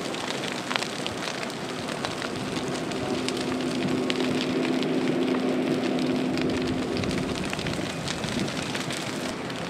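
Burning brush crackling, with many small sharp pops over a steady rush of noise. A steady low hum runs from about two seconds in until about seven.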